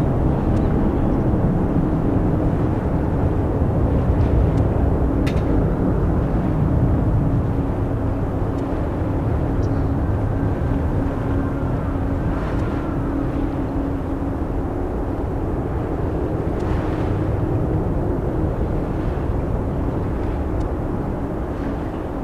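Boeing 747-400D jet engines running at high power on departure: a loud, steady rumble with a constant hum, slowly fading.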